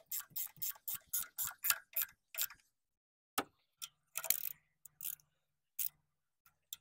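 Hand socket ratchet clicking as it tightens the 14 mm bolts of the upper engine mount (dog bone), about four clicks a second for the first two and a half seconds, then a few scattered clicks and knocks.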